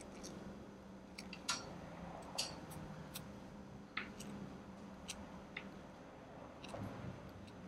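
Steel hemostat forceps clicking as ear hair is gripped and plucked from a dog's ear canal: about a dozen faint, sharp clicks at irregular intervals.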